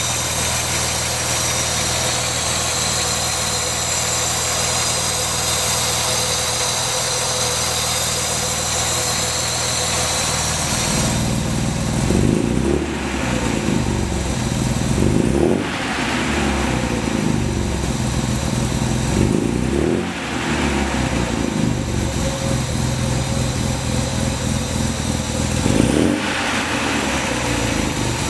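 A 1967 Austin-Healey 3000 Mark III BJ8's straight-six engine idles steadily, then is revved four times in the second half, each rev rising and dropping back to idle.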